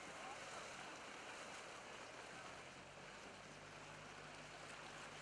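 Faint, steady outdoor water ambience: an even wash of water and wind noise with a low engine hum underneath.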